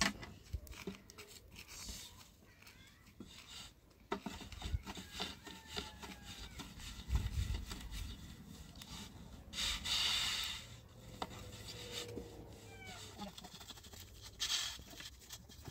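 Thin wooden rolling pin working flatbread dough on a round wooden board: irregular rubbing with light knocks, and a louder rush of noise about ten seconds in.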